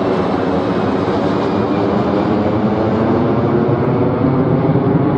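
Airbus A340-300 with four CFM56 turbofan engines climbing out after takeoff and passing directly overhead: steady, loud jet engine noise, its high hiss slowly dulling as the airliner moves away, leaving a heavy low rumble.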